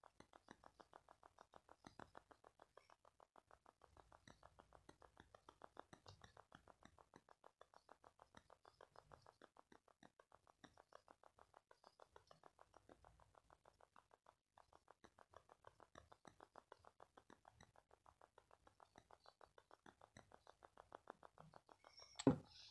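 Near silence, with a faint, very even ticking about five times a second.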